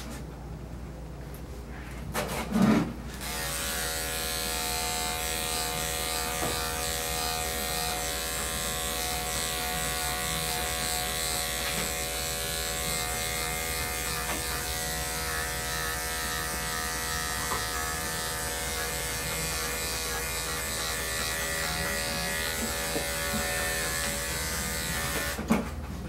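Electric dog-grooming clippers with a #10 blade start up about three seconds in, just after a short knock, then run with a steady, even hum as they shave down a large dog's coat.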